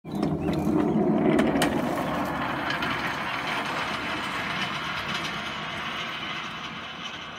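Small rail car rolling on a backyard railroad's steel track, its wheels rattling on the rails with scattered sharp clicks. The sound is loudest about a second in and fades steadily as the car rolls away.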